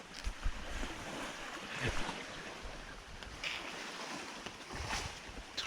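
Wind gusting across the microphone, uneven low rumbles over a steady noisy wash, with a few brief sharper sounds.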